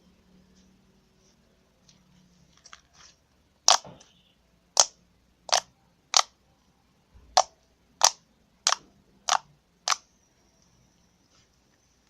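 Slime mixed with EVA foam clay being pressed and squeezed by hand, trapped air popping out with sharp clicks: a couple of faint ones, then nine loud pops from about four seconds in, spaced under a second apart.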